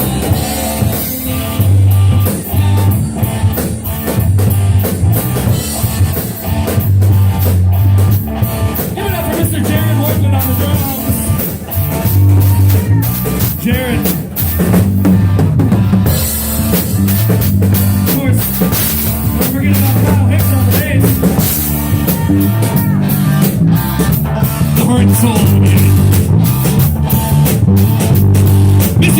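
A live rock band playing an instrumental passage, with the drum kit and a low bass line to the fore.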